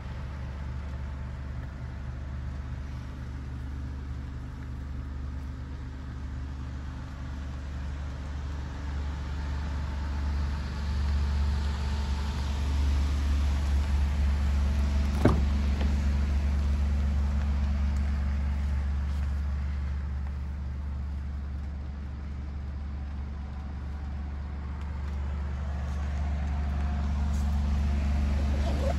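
Alfa Romeo Stelvio Quadrifoglio's 2.9 V6 biturbo engine idling steadily, with a single sharp click about fifteen seconds in.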